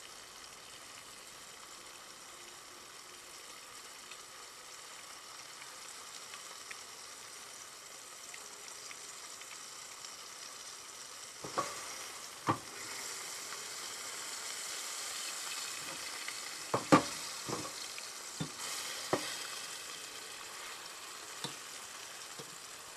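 Floured carp pieces sizzling as they shallow-fry in oil in a pan, the sizzle growing louder about halfway through. Metal tongs click against the pan several times as the pieces are turned.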